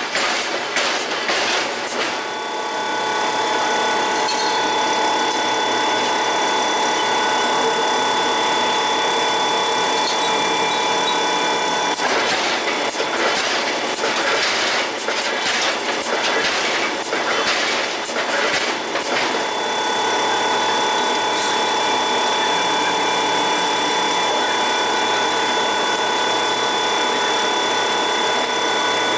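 Forging-plant machinery running with a steady high whine, broken twice by stretches of irregular metallic clanking and knocking.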